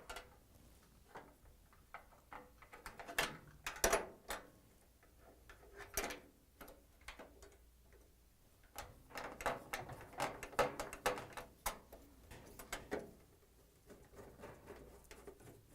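Scattered clicks and light metallic knocks as a replacement dryer door hinge is fitted into the sheet-metal front panel and screwed in with a Phillips screwdriver. The clicks come in small groups, busiest about two thirds of the way through.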